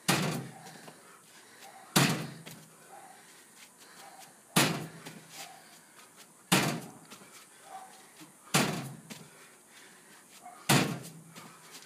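Box jump landings: six heavy thuds of feet coming down on the box, evenly spaced about two seconds apart, each ringing out briefly.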